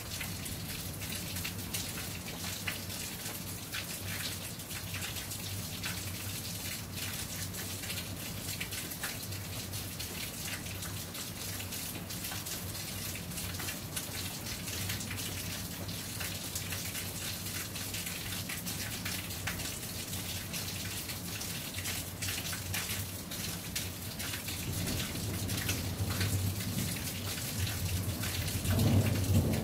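Steady rain falling, with many separate drops heard striking a surface. A low rumble of thunder builds near the end.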